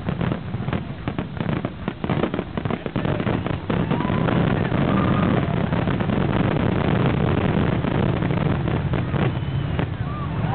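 Fireworks finale: a rapid barrage of shell bursts whose separate reports merge into a continuous heavy rumble from about four seconds in.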